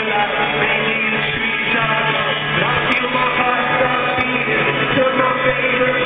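Live rock band playing with singing, heard from the crowd in a stadium.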